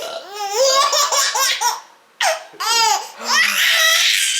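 A baby laughing hard in repeated high-pitched bursts, with a short break about two seconds in.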